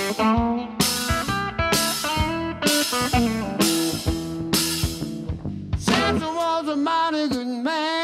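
Live blues band playing an instrumental break: electric guitar lead over bass guitar and drum kit. The band hits accents together about once a second for the first six seconds, then the guitar bends notes with a wide vibrato near the end.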